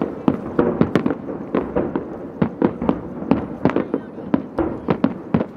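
Aerial firework shells bursting overhead in a rapid, uneven string of bangs, about four a second, over a constant rumble.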